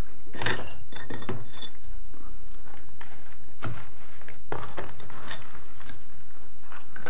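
Broken chunks of concrete floor rubble clinking and knocking as they are picked up, moved and dropped by hand, with a steel bar scraping and knocking among them. There are a few separate knocks about a second apart, and a short ringing clink between 1 and 1.5 seconds in.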